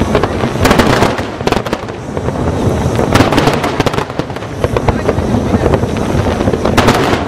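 Aerial fireworks shells bursting in rapid volleys over a continuous low rumble. Clusters of sharp cracks come about a second in, around three seconds in, and again near the end.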